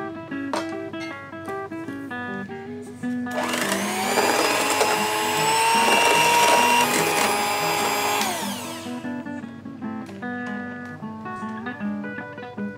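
Electric hand mixer whipping cream in a stainless steel bowl. About three seconds in, the motor whirs up to speed, runs steadily for about five seconds, then winds down. Acoustic guitar music plays underneath.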